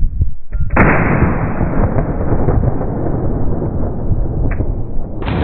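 Shotgun blast slowed down: a sudden boom about a second in that stretches into a long, low rumble lasting several seconds.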